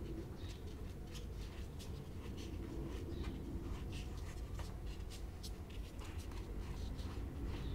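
Fingers scraping and dabbing wet plaster paste in a small plastic cup and on a carved foam brick surface: a string of small, uneven scratchy ticks and scrapes over a steady low background rumble.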